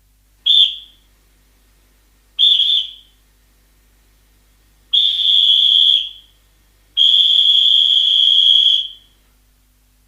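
Referee's whistle blown four times with a shrill, steady pitch: two short blasts, then a blast of about a second and a longer one of nearly two seconds.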